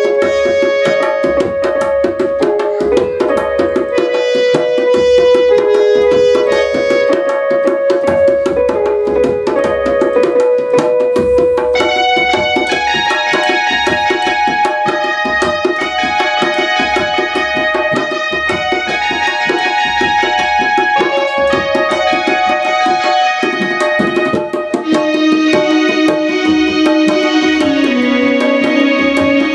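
Instrumental music: a Yamaha electronic keyboard plays a held, stepwise melody over fast hand-drumming on a two-headed barrel drum. About twelve seconds in the keyboard moves to a higher, brighter line, and near the end its melody steps downward.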